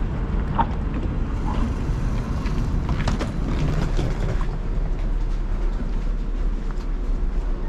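Steady low rumble of a stopped electric tram and the street around it, with scattered footsteps and light clicks as someone walks along the platform and steps aboard.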